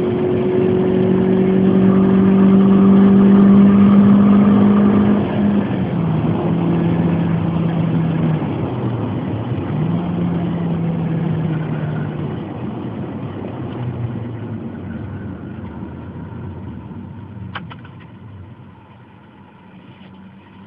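Suzuki Swift Sport's four-cylinder engine under way, heard inside the cabin, breathing through a homemade intake with an OMP dual-funnel open air filter. It pulls with slowly rising pitch and is loudest for the first five seconds, steps down in pitch about five seconds in, dips and comes back around nine to ten seconds, then fades as the car eases off.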